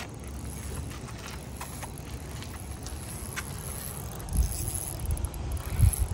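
Spinning rod and reel being worked against a hooked fish: faint scattered clicks over a low steady rumble on the microphone, with two heavier thumps in the second half.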